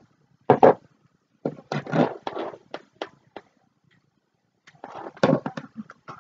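Small glass jars being handled: a series of clinks and knocks, one of them a jar set down on a wooden floor. The sounds come in three short clusters, about half a second in, in the middle, and near the end.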